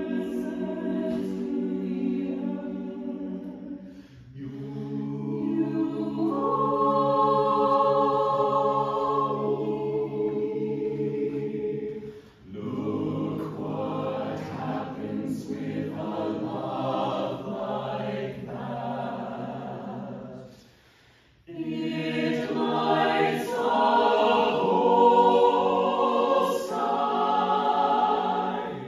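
Mixed-voice choir singing a cappella in sustained chords. Short breaths break the singing about 4 and 12 seconds in, and a near-silent pause of about a second comes around 20 seconds in, before the full choir comes back louder.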